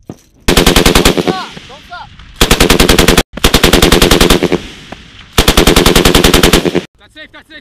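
M240L 7.62 mm machine gun firing four bursts of about a second each, separated by short pauses, each burst a fast even string of shots.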